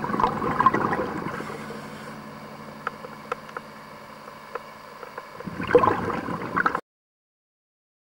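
Underwater gurgling of a scuba diver's exhaled bubbles, in two bursts, one at the start and one about five and a half seconds in, with a few faint clicks between. The sound cuts off suddenly before the end.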